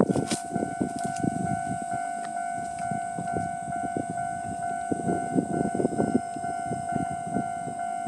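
Japanese railway level-crossing alarm sounding its standard electronic warning bell, a steady ringing tone repeated in an even rhythm, warning of an approaching train.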